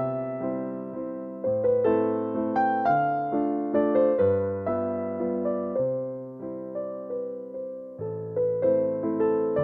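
Background piano music: struck notes and chords, each fading after it is played, about two notes a second.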